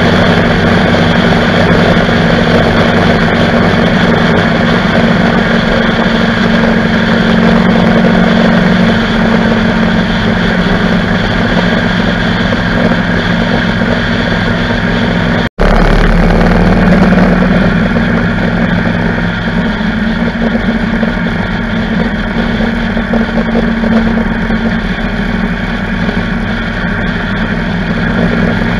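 Motorcycle cruising at road speed: the engine's steady hum under wind rushing over the bike-mounted microphone. The sound cuts out for an instant about halfway through.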